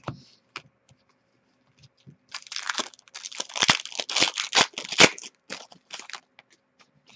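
Upper Deck hockey trading cards being handled and shuffled by hand: after a few faint clicks, a dense run of crinkling and crackling from about two seconds in that dies away near the end.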